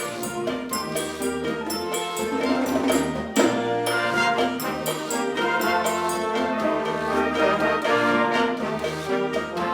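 Concert band music: brass playing held chords over regular percussion strikes.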